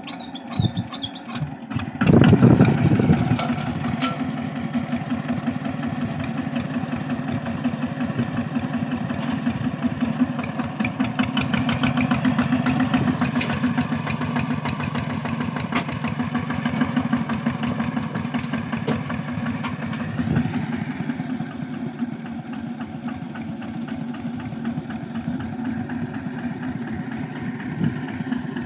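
Two-wheel walking tractor's single-cylinder diesel engine catching about two seconds in, then running steadily with a fast, even putter.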